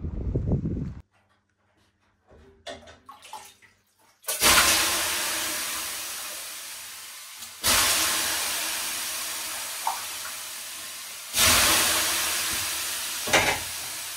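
Water thrown from a ladle onto the hot stones of a sauna stove, three times. Each throw bursts into a loud hiss of steam that slowly fades over a few seconds.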